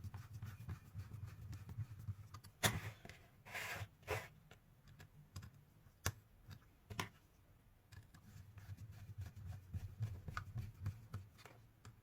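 Faint, scattered clicks and taps from hands working on the plastic parts of a cordless-drill battery pack, with a brief rustle about four seconds in.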